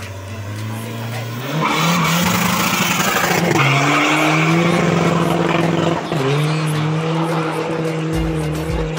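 Tuned Volkswagen Polo TDI diesel engine launched at full throttle and pulling hard through the gears, with the pitch falling back at each gear change. The engine ticks over steadily at first, then gets much louder about a second and a half in. The heavy black smoke marks it as an over-fuelled, tuned diesel.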